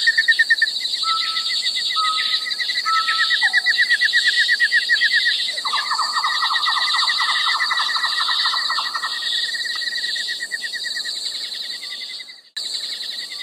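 Songbirds singing: a dense chorus of fast repeated chirps and high trills, with a buzzier trill from about six to nine seconds in.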